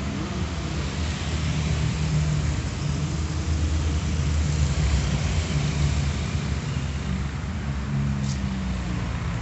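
A steady low hum of a running engine or motor, with a hiss of noise over it and one short high tick near the end.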